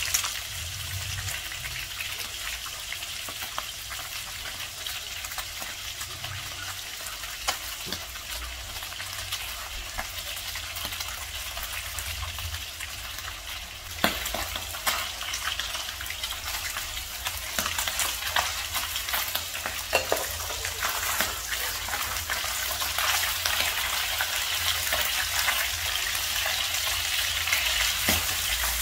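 Fish steaks shallow-frying in hot oil in a pan: a steady sizzle with a dense crackle of small pops, a little louder in the second half.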